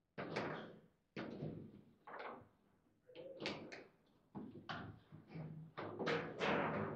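Table football in play: a string of sharp knocks and clacks from the ball, the player figures and the rods striking the table, each with a short ring, coming faster towards the end.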